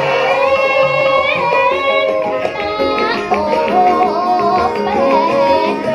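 A Javanese sinden singing into a microphone, her voice gliding and bending between notes, over gamelan accompaniment with drum strokes and plucked and struck instruments.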